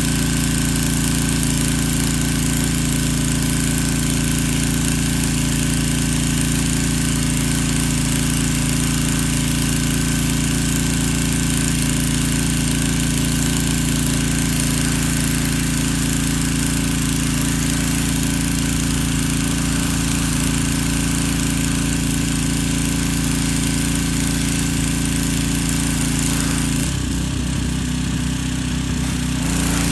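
Small gas engine of a pressure washer running steadily under the hiss of the water spray. About three seconds before the end the spray briefly stops and the engine note changes, then the spray starts again.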